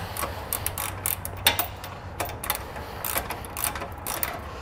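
Ratchet and socket clicking in short, irregular runs as a 9/16-inch bolt is tightened down.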